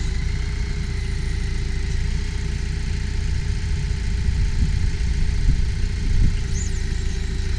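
An engine idling steadily at a constant speed.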